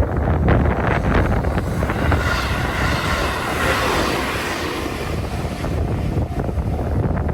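A train running past close by: a steady low rumble with wheel clacks over the rail joints near the start and end, and a rushing hiss for a few seconds in the middle.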